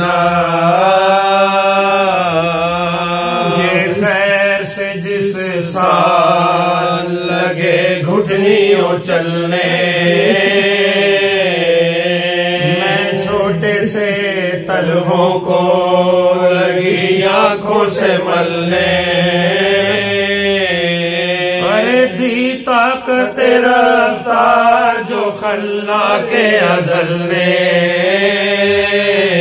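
Male voices chanting an Urdu marsiya (Shia elegy) in the drawn-out soz style, a lead voice bending and holding long notes over a steady low held note.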